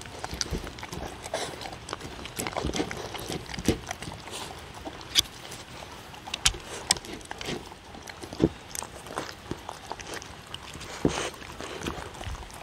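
Two dogs eating from wooden bowls, recorded close up: irregular sharp crunches, chewing and clicks, several of them loud and sudden.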